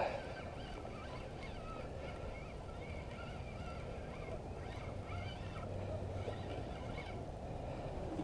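Birds calling repeatedly in the distance, short calls again and again over a steady low outdoor hiss.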